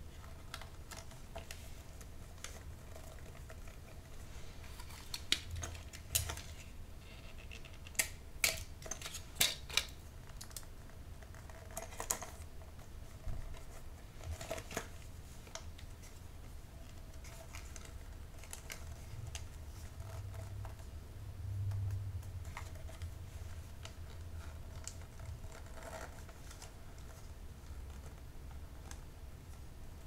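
Close-miked gift wrapping: wrapping paper rustling and crinkling under the hands, with a run of sharp clicks and snaps in the first half, then softer, sparser handling sounds.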